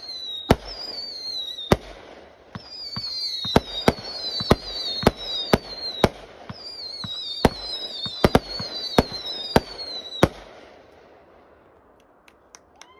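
Aerial fireworks going off overhead: about fourteen sharp bangs at irregular intervals, with high whistles falling in pitch between them. The barrage stops about ten seconds in.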